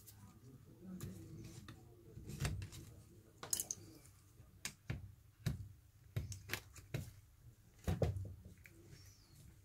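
Handling noise from an iPhone 6 and a plastic suction cup worked in nitrile-gloved hands: a dozen or so irregular small clicks and taps over a low hum.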